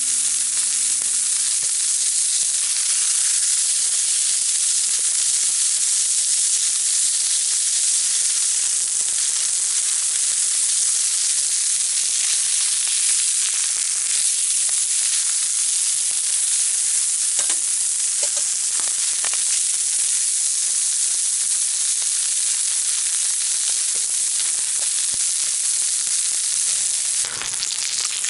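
Pork steak (tonteki) sizzling in a pan over a campfire: a steady frying hiss, with a few faint ticks and a brief knock near the end.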